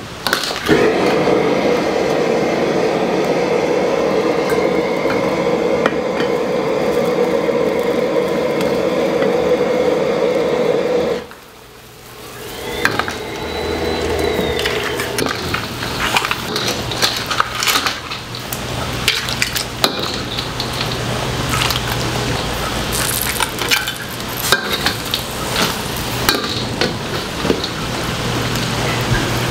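A commercial wok range runs with a loud steady rushing noise for about eleven seconds, then stops abruptly. After that a metal ladle clinks and scrapes against the wok and stainless steel bowls as jjamppong soup is ladled out, over a low steady hum.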